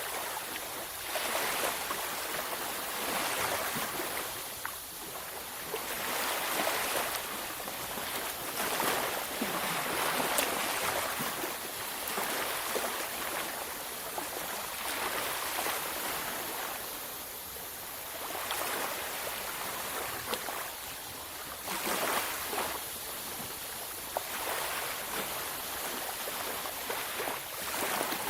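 Waves breaking and washing up a beach, a steady hiss of surf that swells and falls back every few seconds.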